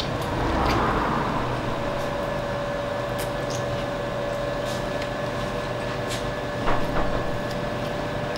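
Steady mechanical room hum with one constant mid-pitched tone, like ventilation or a fan. There is a brief swell of noise about a second in and a couple of light knocks near the end.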